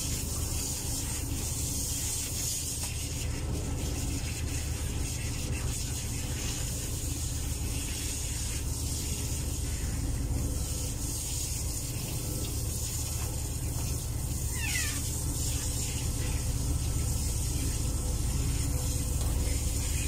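Handheld shower spraying water over a wet cat in a stainless steel tub, a steady rush of water. About fifteen seconds in, the cat gives one short, falling meow.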